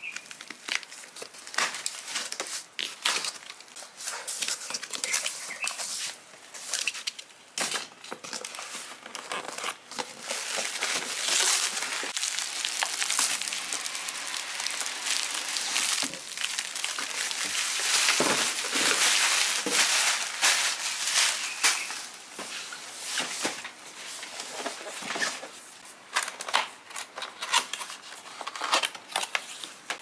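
Clear plastic stretch wrap crinkling and crackling in an irregular run as it is pulled off a cardboard box.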